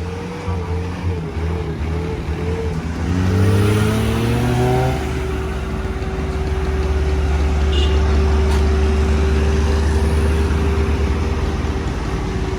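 Truck engine revving up, its pitch rising for about two seconds, then running steadily at the higher speed.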